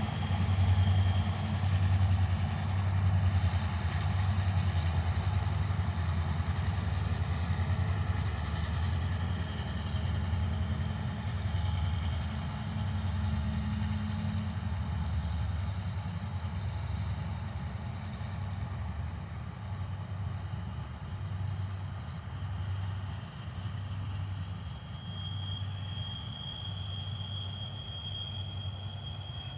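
Diesel locomotives of a passenger train running in the distance: a low rumble that swells and dips and slowly fades as the train moves away.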